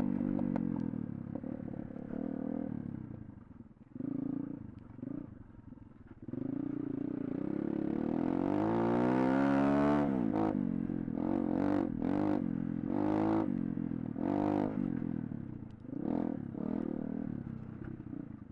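Pit bike engine under way on a trail: it eases off and drops low for a couple of seconds, revs up in one long rising climb, then goes through a run of short throttle blips, each rising and falling, about once a second.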